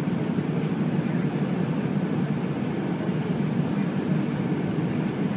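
Steady low rumble inside an Airbus A320 cabin: engine and airflow noise heard from a seat near the front of the plane.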